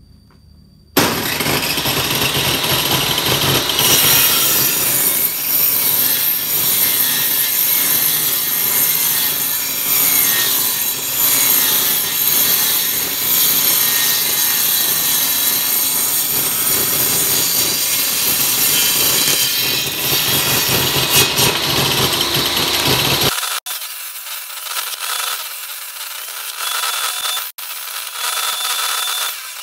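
Bench-mounted circular saw ripping wooden strips into 1x1 cm sticks, starting loud and abruptly about a second in. About 23 s in the sound abruptly turns thinner and higher, with two brief dropouts.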